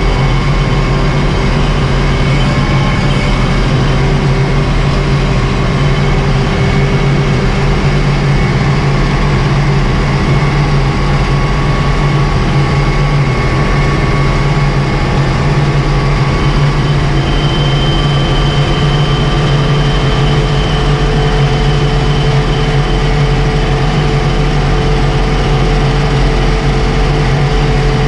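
Ursus 1224 tractor's diesel engine running steadily under way on the road, heard from inside the cab with a deep, even hum.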